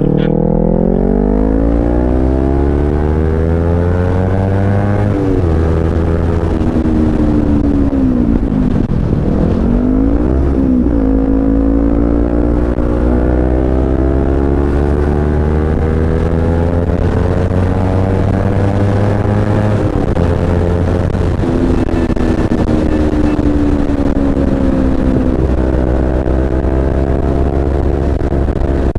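Kawasaki Z250's parallel-twin engine accelerating hard through the gears, revs climbing and then dropping at each upshift, about five seconds in and again near twenty and twenty-five seconds. Around nine seconds in the revs dip and climb back. Wind noise runs underneath.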